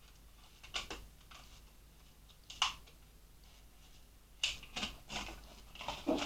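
Memory modules and their plastic packaging being handled: a series of short, irregular plastic clicks and rattles, with one sharper click about two and a half seconds in and a cluster of clicks near the end.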